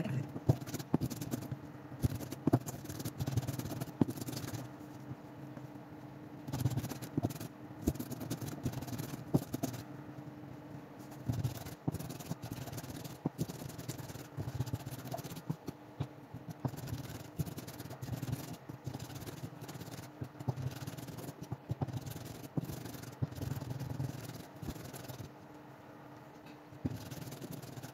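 A mezzaluna rocking and chopping diced red onion and carrot on a wooden cutting board: a quick, uneven run of knocks and scrapes of the curved blade on the wood.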